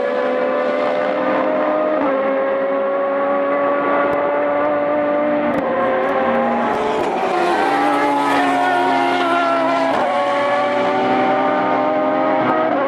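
Aston Martin V12 of the Lola Aston Martin LMP1 car at full race speed. The engine note climbs in pitch and steps back at each gear change, several times over.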